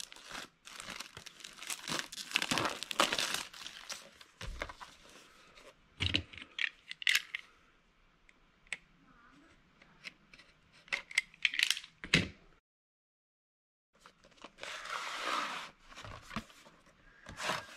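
Plastic shrink wrap crinkling and tearing as it is pulled off a new, sealed VHS tape box, with scattered sharp clicks and taps as the box and tape are handled. A short gap of dead silence comes about two-thirds through.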